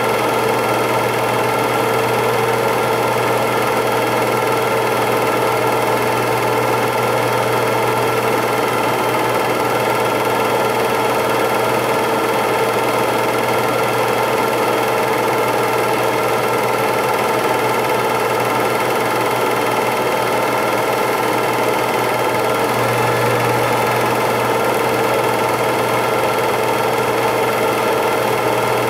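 8mm film projector running steadily, its motor and film-advance mechanism making a constant mechanical hum that does not change with the picture.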